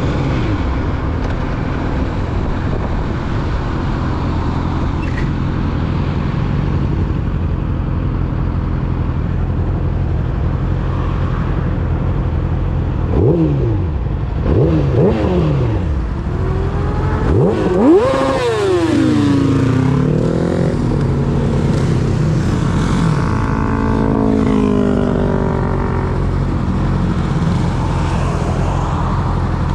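Yamaha YZF-R6's 600 cc inline-four with a full-system aftermarket exhaust, running steadily under way. Past the halfway point the revs swing up and down several times, with a sharp rise and fall that is the loudest moment.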